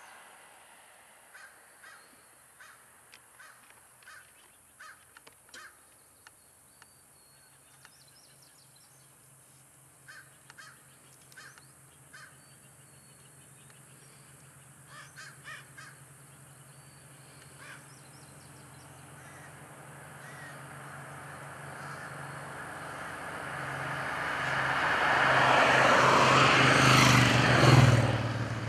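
A vehicle passing on a highway: its road noise and low engine hum build over several seconds to loud near the end, then drop off sharply. Earlier, faint, irregular short clicks and snaps come in small clusters.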